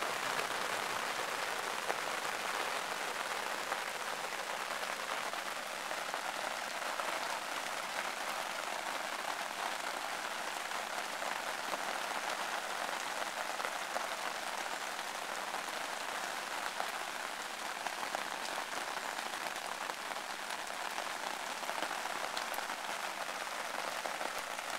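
Steady monsoon rain falling on the camp, a dense even hiss with scattered individual drops ticking.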